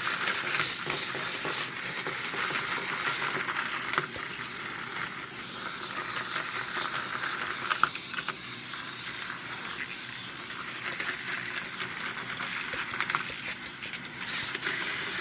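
Several small plastic wind-up toys running at once: a steady, dense clatter of many fine clicks from their clockwork mechanisms and moving parts.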